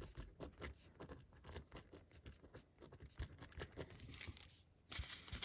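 Faint, irregular light taps and scratchy strokes of a gel pen and paper being handled and written with, quieting briefly near the end before slightly louder handling.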